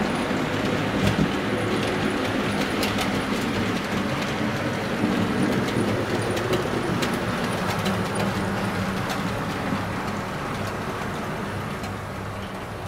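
OO gauge model steam train running on the layout: a steady motor and wheel hum with scattered clicks from the wheels on the track, easing off near the end.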